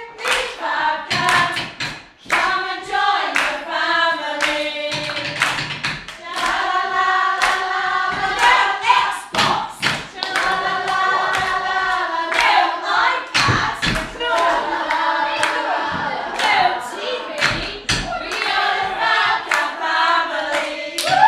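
A small group of women singing a song together, with hands clapping along to a steady beat.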